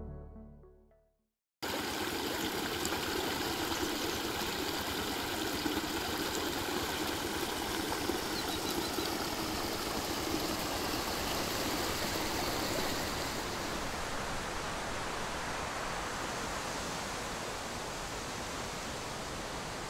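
Background music fading out, then after a brief silence a steady rush of flowing water sets in. Its hiss softens a little after about 14 seconds.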